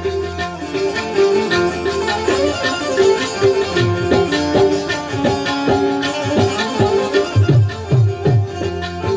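Instrumental Gujarati folk music: rhythmic hand-drum strikes with low, pitch-dropping drum beats under held melodic notes, with no singing.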